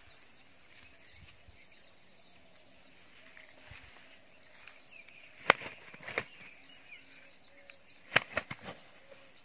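A freshly landed snakehead (murrel) flopping and slapping on the grass as a man grabs at it. There are two sharp slaps about halfway through and a quick run of three near the end, over faint bird chirps.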